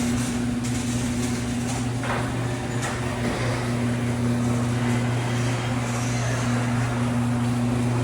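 Steady low mechanical hum, with a couple of faint clicks about two to three seconds in.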